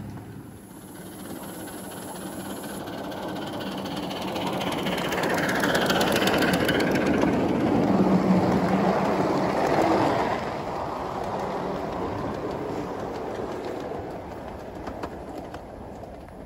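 A 5-inch gauge ride-on miniature train running on its track, its wheels rumbling and clicking over the rails. The sound grows louder to a peak around the middle as the carriages pass close, then drops off suddenly and carries on more quietly.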